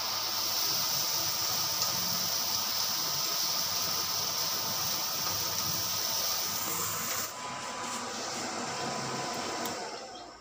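Ground meat sizzling in a frying pan as it is stirred, over the steady hum of a range hood fan. About seven seconds in the high sizzle drops away, and near the end the fan's hum slides down in pitch and stops as it winds down.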